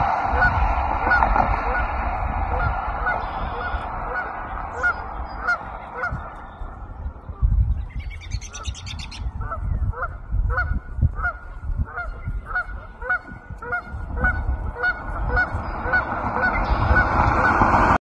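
Geese honking: a dense chorus of many calls at first, thinning out in the middle, then distinct honks about two a second, growing louder again near the end, over a low rumble.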